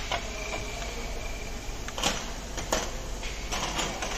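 Irregular clunks and knocks from a broken CV joint on a car's drive axle, a few sharp ones about two seconds in and a quick cluster near the end, over a steady rushing noise.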